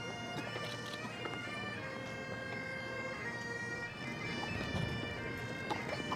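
Bagpipes playing a tune.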